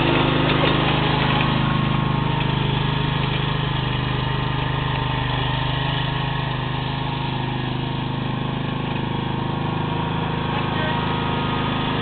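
Engine of a Toro Tru-Trak commercial walk-behind mower running steadily as the mower is driven across grass. It is a little fainter through the middle as the mower moves away, and louder again near the end as it comes back.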